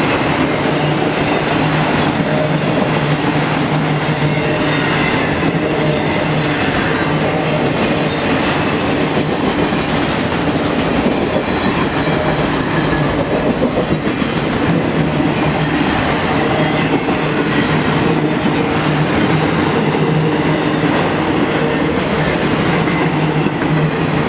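CSX freight train of autorack cars rolling past at speed: a steady loud rumble and clatter of steel wheels on the rails, with a constant low hum underneath.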